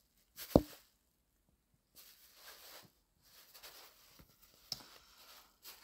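Close-up handling noise on a phone's microphone: one sharp tap about half a second in, then several soft hissy stretches with a couple of small clicks.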